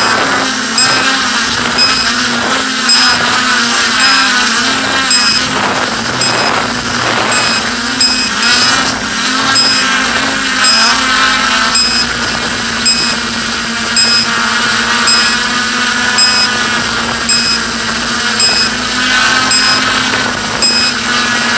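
A small motor running steadily with a slightly wavering hum, and a faint tick repeating a little faster than once a second.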